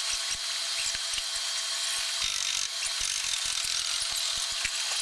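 Aircraft assembly-floor noise: a steady high hiss with a thin whine over it, and irregular clicks and ticks from hand tools and parts being worked.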